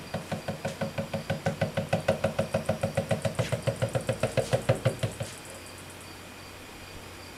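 Fiberglass resin glugging out of a tilted plastic container as it is poured: a fast run of glugs, about seven a second and growing louder, that stops abruptly a little after five seconds in.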